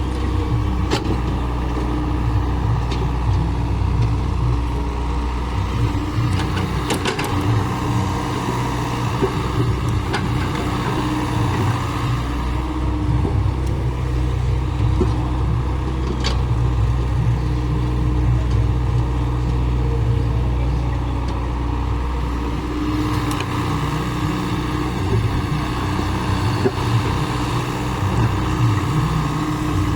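Heavy earthmoving machine's engine running steadily, its note shifting a couple of times, with a few sharp knocks.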